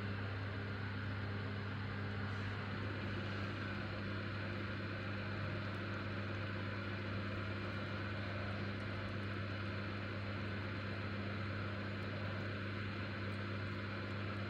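A steady low hum with an even hiss that stays unchanged.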